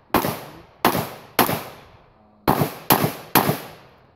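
Glock 34 9mm pistol firing six shots in two strings of three, about half a second apart, with a pause of about a second between the strings. Each shot is a sharp crack with a short echoing tail.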